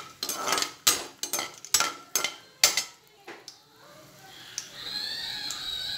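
A perforated metal skimmer clinking and scraping against an aluminium pan as whole spices are stirred in hot oil, a quick run of sharp strokes over the first three seconds. After that comes a softer, steady hiss of the oil frying.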